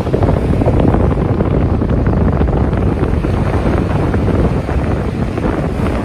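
Choppy sea waves breaking and washing ashore in a steady rushing noise, with strong wind buffeting the microphone.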